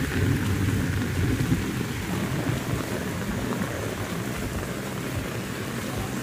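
Very heavy rain pouring down steadily. A low rumble runs under it and is loudest in the first two seconds.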